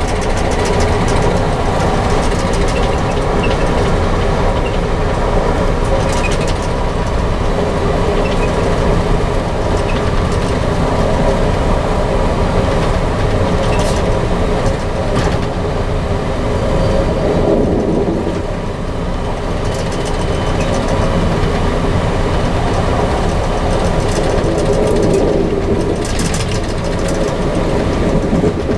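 Amtrak passenger train in motion, heard from inside the car: a steady rumble of wheels on the rails, with a few sharp clicks scattered through it.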